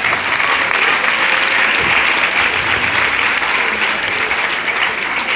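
A large audience of students applauding, a steady wash of clapping that eases slightly near the end.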